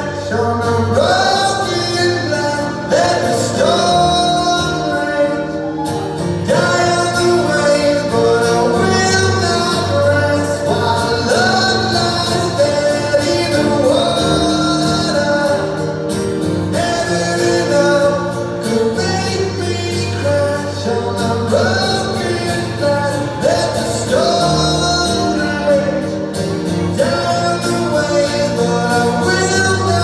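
Live band music heard from the audience in a theatre: guitar and keyboards with singing, played loud through the PA without a break.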